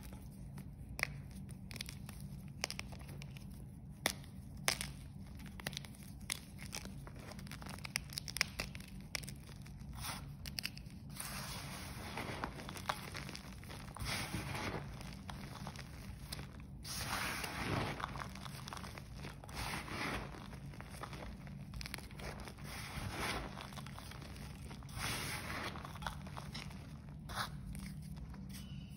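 Blocks of gym chalk crushed and crumbled by hand, giving many sharp crunches and crackles, then longer hissing, gritty stretches as the chalk crumbs and powder are rubbed and swept with the fingers from about eleven seconds in.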